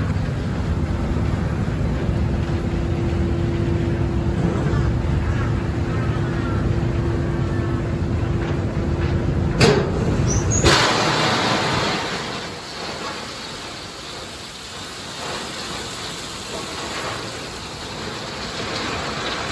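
A coal train's hopper car rumbles slowly under a loadout chute, with a steady low hum running alongside. A sharp knock comes just before halfway. Then coal pours from the chute into the open hopper car as a steady rushing hiss, with the rumble dropping away.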